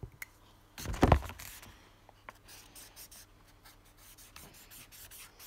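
Felt-tip marker scratching on paper in short colouring strokes. A loud thump comes about a second in, before the strokes begin.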